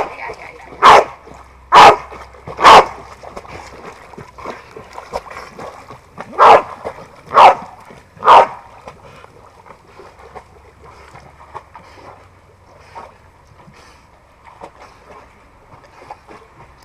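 A dog barking in two runs: four barks about a second apart, then after a pause three more at the same pace. Faint sloshing and splashing of a dog swimming in the pool runs underneath.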